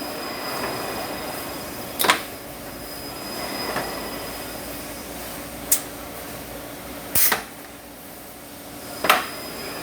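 Four sharp knocks, a second or two apart, over a steady background hum.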